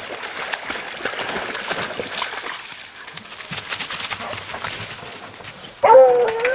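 Splashing and scuffling of beagles moving through shallow floodwater and leaves, then near the end a beagle starts to bay loudly, giving voice on the wild boar it is working.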